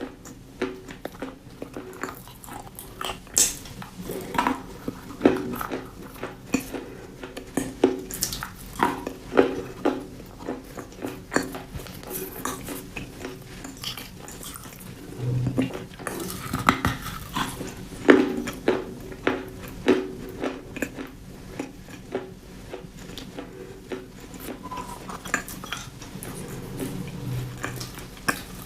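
Close-miked crunchy chewing: irregular sharp crackles and crunches, several a second, with a few louder bites.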